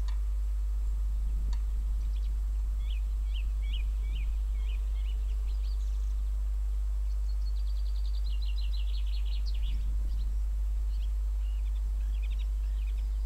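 Songbirds singing in short repeated phrases, with a quick run of rapid notes falling in pitch about seven seconds in. A steady low rumble runs underneath.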